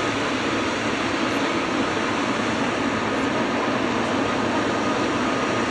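Jet airliner engines running: a steady rushing noise with a thin, high, even whine over it.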